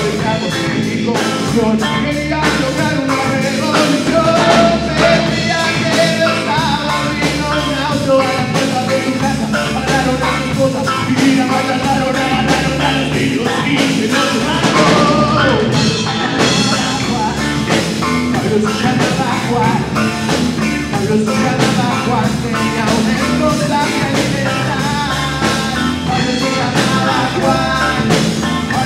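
Live rock trio playing a song: a man singing over strummed acoustic guitar, electric guitar and a drum kit.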